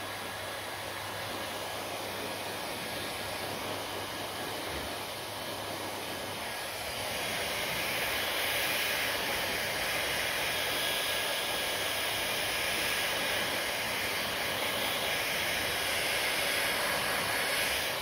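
Handheld hair dryer blowing steadily. It grows louder and hissier about seven seconds in, then drops back near the end.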